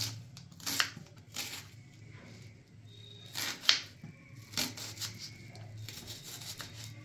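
Kitchen knife cutting an onion on a chopping board: a few irregular knocks of the blade, the strongest about halfway through, over a low steady hum.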